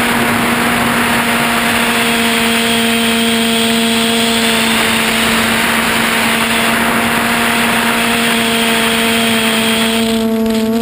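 The QAV400 quadcopter's four brushless motors spin 8-inch props in flight, heard from the GoPro mounted on the frame: a steady motor-and-prop whine over rushing air noise. Near the end the rushing noise drops away.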